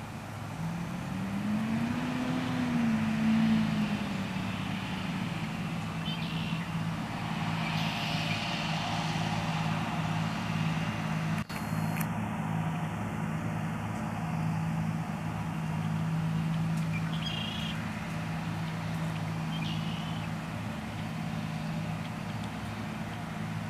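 John Deere 8R-series tractor's diesel engine running under load as it pulls a ripper bedder through the field. Its pitch rises and falls back once in the first few seconds, then holds steady, with a brief break in the sound about halfway through.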